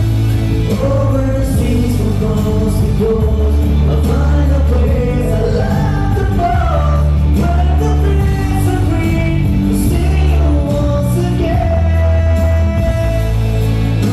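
A pop song sung over amplified backing music, the voice carrying the melody over sustained bass notes.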